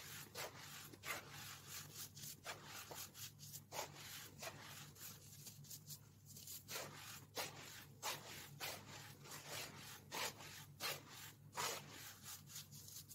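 Hands squeezing and crumbling baking soda powder and clumps: a dense run of short, irregular crunches, over a faint steady low hum.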